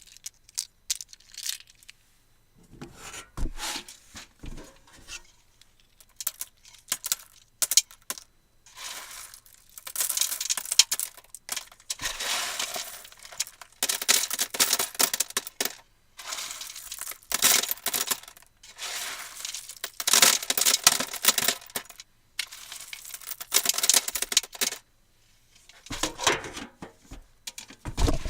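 Coins flipped again and again, each one clinking and rattling as it lands and settles. The sounds come in stretches of a second or two with short pauses between.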